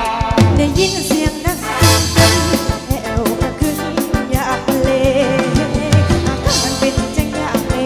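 Live Thai ramwong dance-band music, taken from the mixing desk: an upbeat tune with brass and a drum kit keeping a steady beat.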